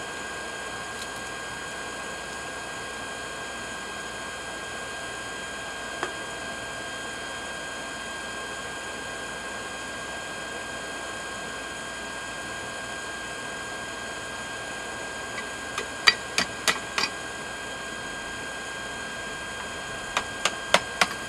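Forge air blower running with a steady hum. Near the end, two quick runs of hammer blows on hot steel on the anvil, about six strikes and then about five, the loudest sounds.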